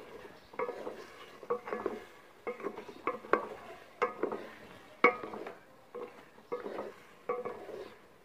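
Wooden spatula scraping and knocking against a metal pot while stirring potato chunks and green peas, in repeated short strokes roughly every half second.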